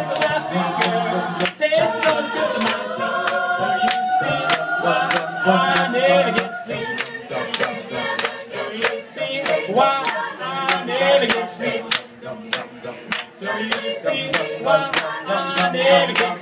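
A cappella group singing a live arrangement in close harmony, without instruments: wordless sustained chords over a sung bass line, kept in time by sharp handclaps about two a second.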